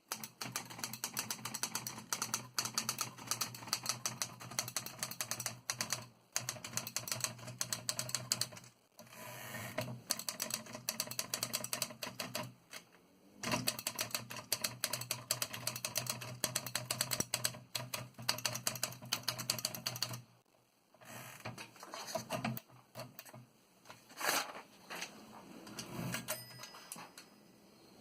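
1921 L.C. Smith No. 8 desk typewriter being typed on: fast runs of keystrokes clacking, broken by a few short pauses, then thinning to scattered single strikes over the last several seconds.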